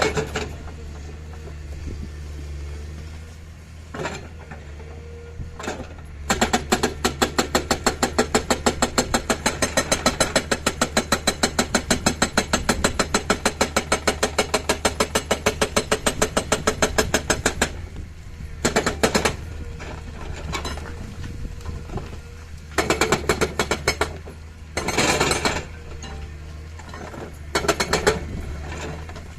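Komatsu excavator's hydraulic breaker hammering in a fast, even run of blows for about eleven seconds, then in several short bursts, over the steady hum of the excavator's diesel engine.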